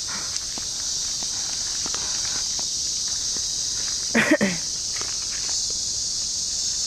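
A steady, high-pitched chorus of forest insects, with faint footsteps on the dirt and leaf-litter trail. A brief, louder call cuts in about four seconds in.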